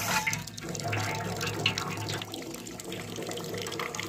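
Water splashing from a running spout onto a steel plate and stone as dishes are rinsed by hand, with short clinks of metal dishes.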